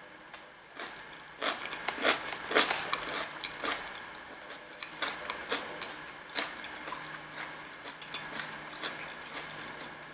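Close-up chewing of a mouthful of roasted cauliflower: soft crunches and wet mouth clicks, thickest and loudest in the first few seconds, then fewer and quieter.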